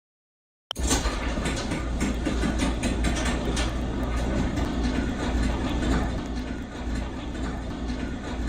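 Belt-drive garage door opener starting about a second in and running steadily, a low hum with many small clicks and rattles as the door travels along its rail.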